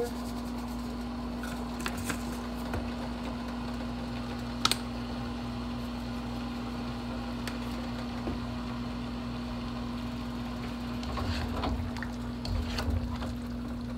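Steady appliance hum with a single sharp click about a third of the way in; near the end, soft knocks and scrapes of a spatula stirring chicken and vegetables in a stir-fry pan.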